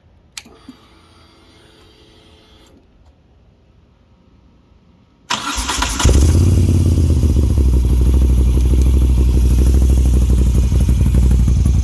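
Moto Guzzi V7's transverse V-twin, fitted with an Agostini aftermarket exhaust, being started. A click and a faint steady whine come as the key is switched on. A few seconds later the starter cranks briefly, and the engine catches and settles into a loud, deep idle.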